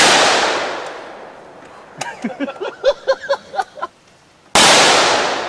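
Two gunshots about four and a half seconds apart, the first at the very start and the second near the end, each ringing out and dying away over a second or more.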